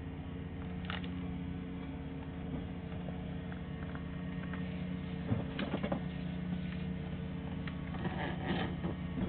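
Steady electrical hum from a sewer inspection camera system, with a few short scrapes and knocks from the camera head and push cable moving through the sewer pipe, mostly around the middle and near the end.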